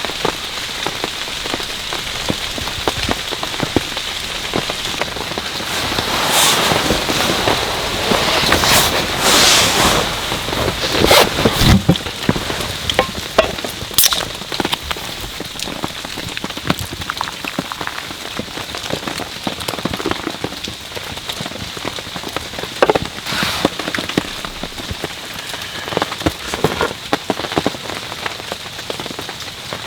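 Steady rain, a dense mass of small drop hits, growing heavier for a few seconds about a third of the way in, with a few sharper single drops standing out.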